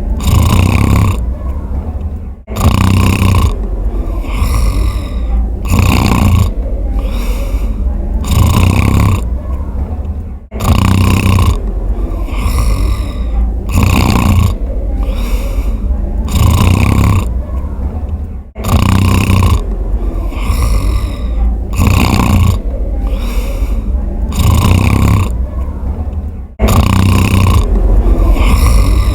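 A sleeper snoring in a steady rhythm of drawn breaths. The same stretch of snoring repeats about every eight seconds, with a brief break at each repeat.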